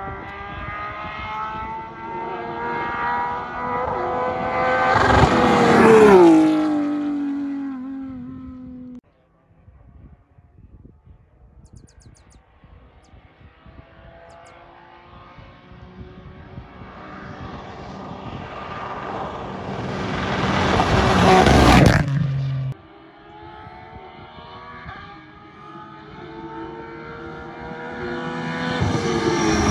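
Three rally cars pass at speed on a tarmac road, one after another. Each engine note climbs under throttle as the car approaches, then drops sharply in pitch as it goes by: about six seconds in, about twenty-one seconds in, and at the very end. The sound cuts off suddenly after the first two passes.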